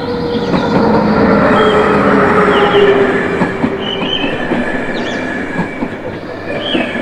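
Passenger train coaches passing close by at speed: a steady rushing rumble of wheels on rail with a low hum, loudest two to three seconds in and easing off toward the end.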